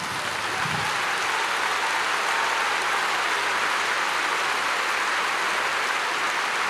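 A large stadium crowd applauding steadily. The clapping swells over the first second and then holds level.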